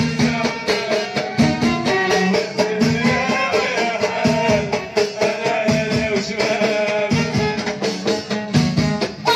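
Live band music: several hand-played frame drums with jingles beat a steady, driving rhythm while a violin plays the melody.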